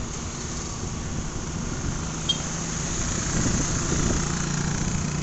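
Road noise from a moving motorbike: steady engine hum and passing traffic, with wind hiss on the microphone. A brief high-pitched chirp sounds about two seconds in.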